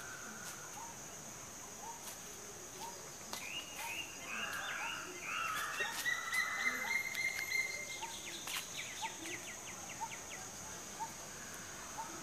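Birds and insects: a steady high insect drone, a short bird note repeated about twice a second, and from about three seconds in a louder songbird phrase of rising chirps, a held whistle and a rapid trill that ends near nine seconds.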